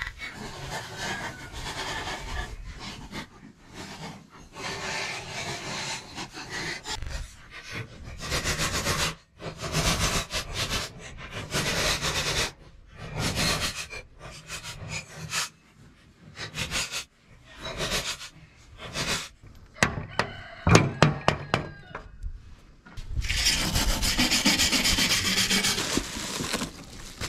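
Repeated scraping strokes of a hand tool on the steel mower deck of a John Deere Z425B, coming in bursts with short pauses. Near the end come a few seconds of steady crinkling of bubble wrap.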